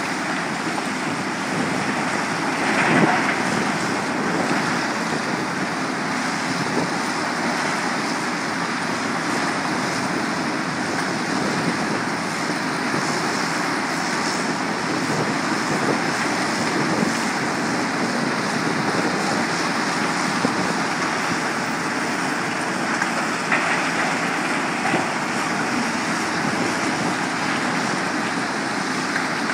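A steady, loud din of heavy quarry machinery: the diesel engines of Cat 325 and Cat 345 hydraulic excavators and a tracked mobile crusher running as rock is dug and loaded. There are a couple of brief louder surges, about three seconds in and near the end.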